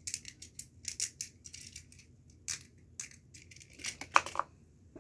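Small plastic fidget toys being handled and rummaged through: a scattered run of short clicks and rustles.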